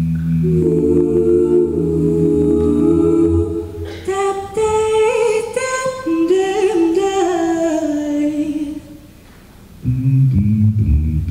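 Mixed-voice a cappella group singing through microphones: a held low chord, then about four seconds in a higher lead line with harmonies that steps downward. After a short lull, low voices come back in near the end.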